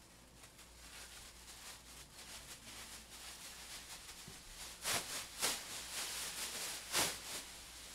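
Rustling noise that builds up, with three sharper crackles about five, five and a half and seven seconds in.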